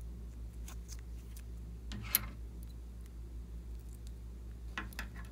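A plastic tube bag of slime being handled, with one louder rustle about two seconds in. Near the end, small scissors snip into the plastic bag in a few sharp clicks.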